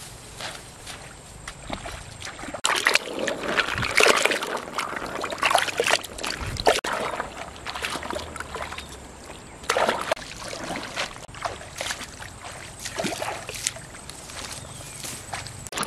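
Shallow river water splashing and sloshing as someone wades through it and dips a woven bamboo basket in and out, in irregular surges that are busiest a few seconds in and again around two-thirds of the way through.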